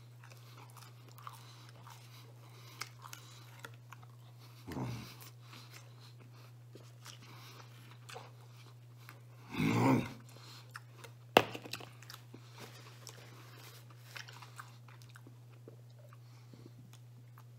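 A man chewing pizza crust dipped in garlic butter sauce: soft crunching and wet mouth sounds over a steady low hum. There is a louder short vocal sound about ten seconds in, and a single sharp click just after it.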